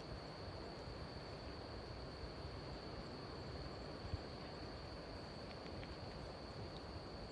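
Faint, steady, high-pitched insect trill at one unchanging pitch over quiet low background noise, with one small click about four seconds in.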